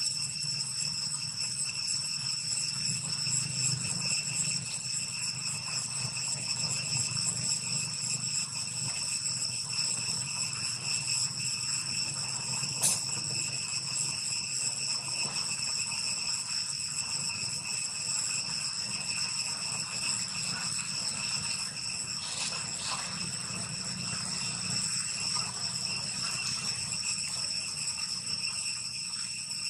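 Insects droning in a steady, high-pitched chorus, with a low rumble underneath and a couple of faint clicks.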